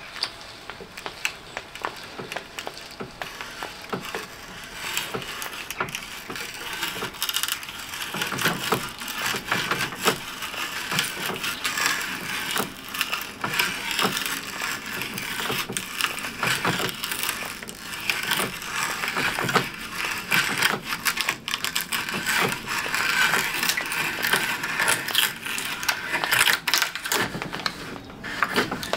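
Auger bit turned by a hand brace boring a hole into plywood: a steady run of small clicks and scraping as the cutters shave the plies and lift wood curls.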